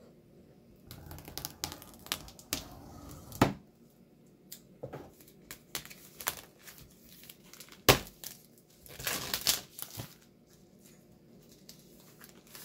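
Clear plastic cellophane packaging crinkling and tearing in irregular bursts as it is opened by hand, with two sharper clicks, one a few seconds in and a louder one past the middle.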